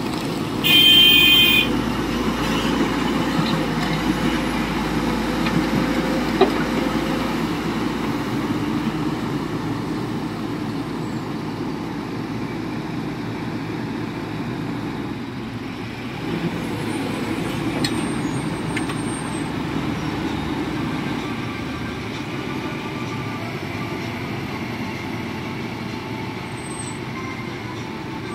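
SANY SY225 excavator's diesel engine running steadily as it digs and dumps soil. A loud horn toot lasting about a second comes just under a second in.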